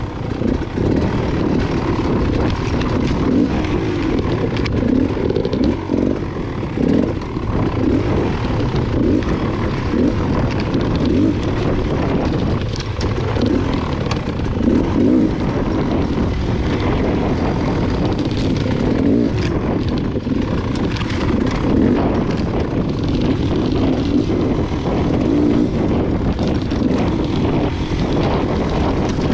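Beta Xtrainer dirt bike's two-stroke engine running and revving up and down as the bike is ridden.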